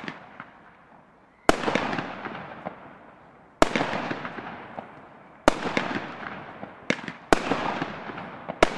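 Blackboxx Knallbär firework battery firing shot after shot: five loud bangs about two seconds apart, each followed by a fading tail with small pops.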